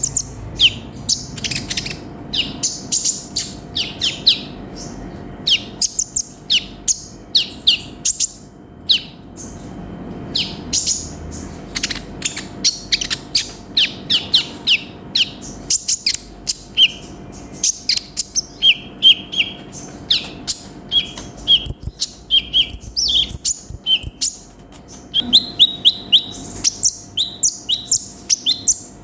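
A sunbird (konin) singing a fast, continuous string of sharp high chirps and twitters, with runs of short clipped notes in the second half.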